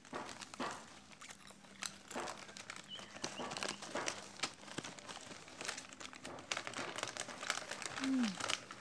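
Plastic snack wrappers crinkling and rustling in irregular bursts as they are handled, with a brief falling vocal sound near the end.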